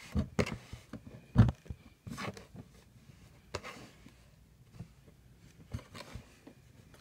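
Hands pressing and kneading kinetic sand on a tabletop: irregular soft thumps and scrapes, the loudest thump about a second and a half in.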